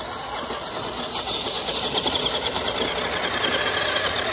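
Radio-controlled scale truck's electric motor and gearbox whining under load as it drives up a steep, muddy slope, slowly getting louder.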